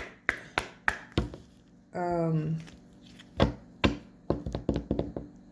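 A deck of oracle cards being shuffled by hand: a series of sharp slaps and taps of cards, some in quick clusters. A short vocal sound comes about two seconds in.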